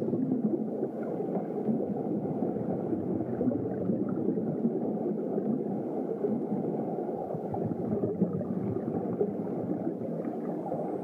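Wind buffeting the microphone of an action camera riding in an open lift cabin, a steady low rushing noise that wavers slightly.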